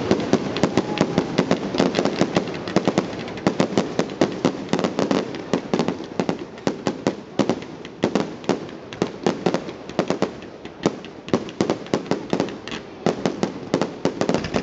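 Fireworks display: a rapid barrage of aerial shells bursting, several sharp bangs a second without a break.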